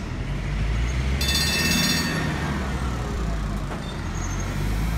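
Stadler Citylink tram-train running slowly on street track with a steady low rumble. About a second in, a high ringing squeal sounds for about a second.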